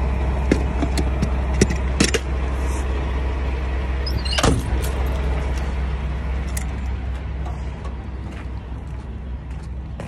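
Semi truck's diesel engine idling as a steady low rumble that grows fainter toward the end. Over it come a few sharp metal clanks in the first two seconds as a crowbar is pulled out of the truck's storage box, then footsteps on gravel.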